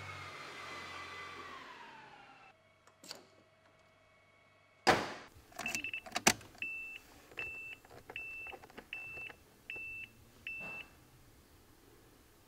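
A loud sharp knock about five seconds in, a few clicks, then the Honda Crosstour's dashboard chime beeping six times, about one short high beep every 0.8 seconds.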